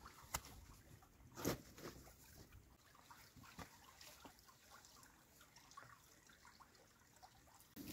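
Faint gurgling and trickling of spring water as a plastic bottle is held under the surface of a small rock pool and fills. Two soft knocks come in the first second and a half.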